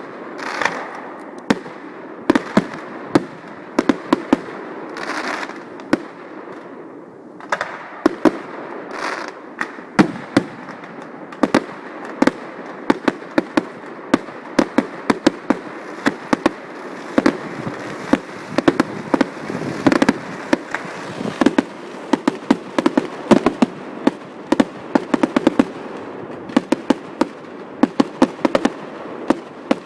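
Fireworks display: a continuous run of sharp shell bursts and bangs over a crackling hiss, growing denser and more rapid from about halfway through.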